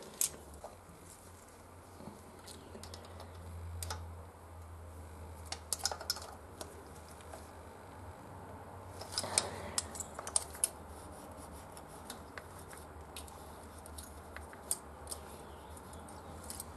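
Scattered light metallic clicks and scrapes of small hand tools and a feeler gauge working at the valve rocker arm adjuster of a Honda Transalp's front cylinder head while setting the valve clearance, with a cluster of clicks a little past the middle and a steady low hum underneath.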